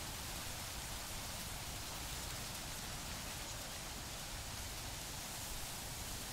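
Faint, steady hiss with a low rumble underneath, without any distinct events.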